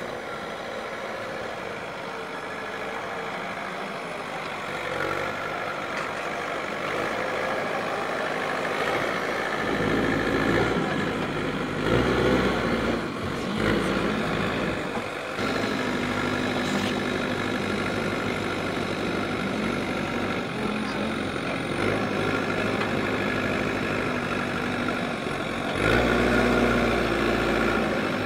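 JCB 3DX backhoe loader's diesel engine running under load, its note rising and falling as the machine drives and works its front loader. The sound gets louder about ten seconds in and steps up again near the end.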